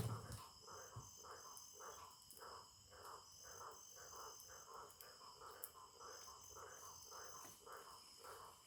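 Crickets and other night insects chirping faintly. Steady high-pitched trills run under a rhythmic pulsing call that repeats about twice a second.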